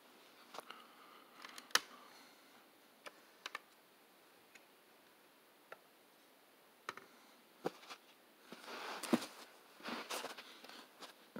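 Hands handling die-cast model trucks and their parts: scattered light clicks and taps at irregular spacing, with a couple of seconds of denser rustling and clicking near the end.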